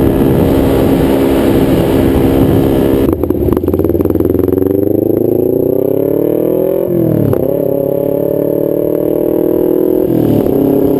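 2012 Kawasaki Ninja 250R's parallel-twin engine through a nearly straight-piped DanMoto XG-1 exhaust, heard from on the bike along with wind noise. It runs steadily at speed, then eases off about three seconds in with a brief rattle. It revs up rising in pitch, and upshifts nearly seven seconds in with a quick drop and recovery, with another shift near the end.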